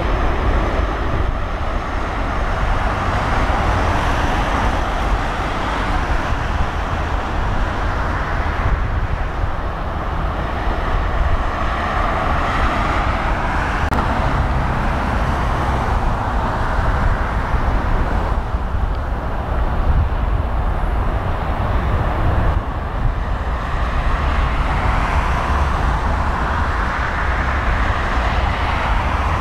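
Jet airliner engines running at low power as the aircraft taxi: a steady rumbling hiss that swells and eases twice.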